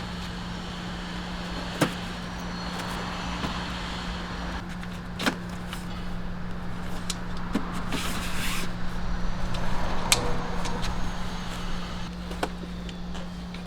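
Steady mechanical hum of a running motor, with a low rumble under it and a few sharp clicks scattered through.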